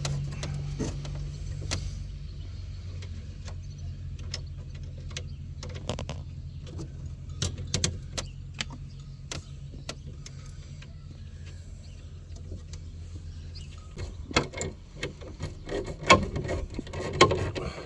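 Electric window motor in a motorhome's driver's door running with a steady low hum as it drives the glass, easing off towards the end, with scattered clicks and knocks from the door mechanism, busiest near the end. The motor runs slowly, which the owners take for the fault: the motor itself is slow and the glass needs a bit of help.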